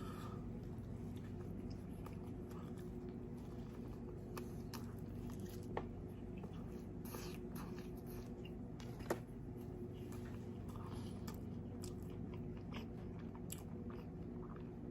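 Close-miked chewing of food, with soft mouth clicks and wet smacks, over a steady low hum; two slightly sharper clicks come about six and nine seconds in.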